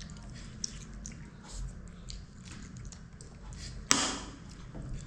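Chewing and lip-smacking while eating fish curry with rice: a run of small wet clicks, with one sharp clink about four seconds in.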